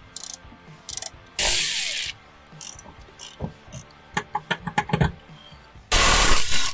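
A ratchet wrench clicking in a quick run on suspension bolts. Short loud noisy bursts come about a second and a half in and near the end.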